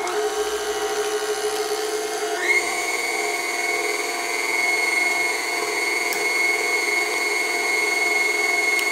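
KitchenAid Artisan stand mixer motor running with its wire whisk beating butter, sugar and eggs into pound-cake batter, a steady whine that rises to a higher speed about two and a half seconds in and then holds. A couple of faint clicks near the end as an egg is cracked on the bowl's rim.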